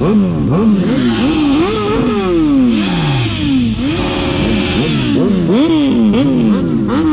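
Superbike engines revving hard in quick throttle blips, the pitch jumping up and falling back about twice a second, with a few longer revs that wind down slowly.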